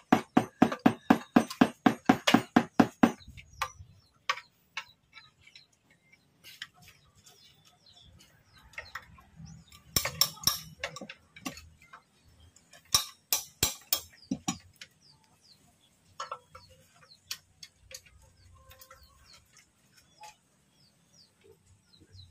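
A ratchet wrench clicking in quick, even runs, about five clicks a second for the first three seconds and again in two shorter runs later, with scattered metal clinks of tools between, while bolts on an engine's oil pan are worked loose.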